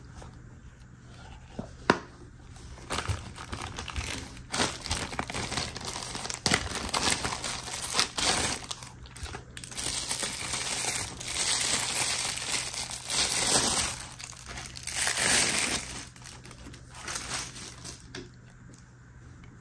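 Clear plastic wrapping crinkling and rustling as it is handled and pulled off a pair of sunglasses. The crinkling comes in irregular bursts, loudest past the middle, and dies down near the end.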